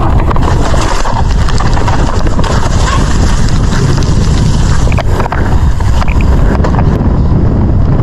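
Mountain bike descending a dirt trail at speed: heavy wind buffeting on the bike- or helmet-mounted microphone over the rush of tyres on dirt, with a few sharp knocks from bumps around five seconds in.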